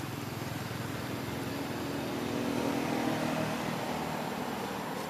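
A motor vehicle's engine passing by, growing louder to a peak about three seconds in and then fading.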